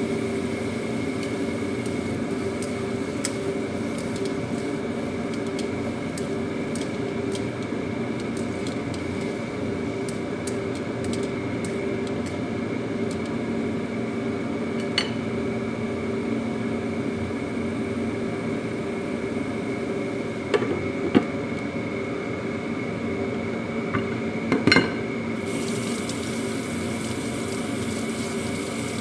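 A steady appliance hum with a few pitched lines runs under the cooking. Over it come a few sharp clinks and knocks of a spatula against a steel wok as luffa pieces are stirred, the loudest near the end.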